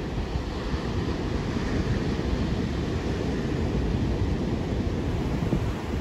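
Ocean surf breaking and washing up the beach in a steady rush, with wind buffeting the microphone as a choppy low rumble.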